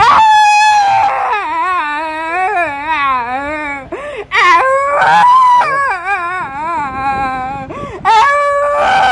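A woman wailing and sobbing in long, wavering cries. Loud, high held cries come at the start, about four seconds in and again near the end.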